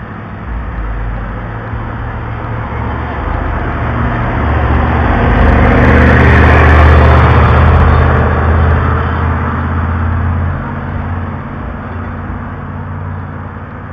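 A vehicle with a modified exhaust passing on the street: a loud, deep engine drone that builds to its loudest about six to seven seconds in, then fades away.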